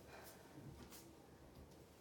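Near silence: room tone, with two faint short soft noises about a third of a second and a second in.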